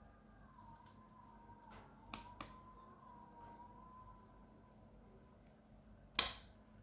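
Sharp clicks from small laptop parts being handled during disassembly: two light ones about two seconds in and a louder one near the end, over a faint wavering background tone.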